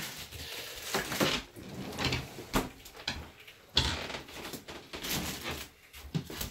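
Kitchen handling sounds: a run of short knocks and clatters, the sharpest a little under four seconds in.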